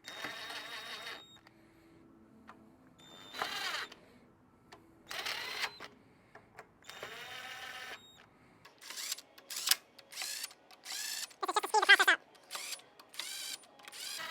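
Cordless drill/driver with a 13 mm socket running pump manifold bolts down in short bursts of about a second each, its motor whine rising and falling with each trigger pull. The bursts turn to a quick run of short blips near the end as the bolts reach the base.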